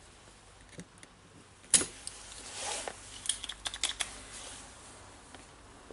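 Spring-loaded desoldering pump firing with one sharp snap a little under two seconds in, sucking molten solder off a drill motor terminal to free its wire. About a second later comes a quick run of light clicks and taps.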